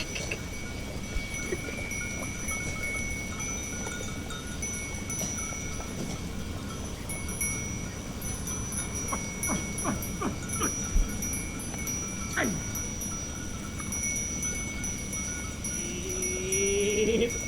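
A herd of goats with bells ringing and clinking steadily, with scattered sharp clanks. Near the end one goat gives a single rising bleat.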